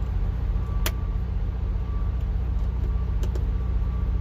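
Steady low engine-like rumble with a faint steady whine above it, and two light clicks, about a second in and just past three seconds, from the parts being handled.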